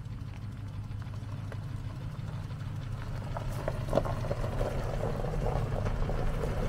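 Truck engine running steadily, growing a little louder and rougher in the second half.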